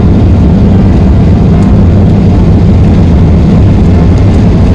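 Cabin noise inside a Boeing 737-800 with its CFM56 jet engines running: a loud, steady low rumble of engines and airflow.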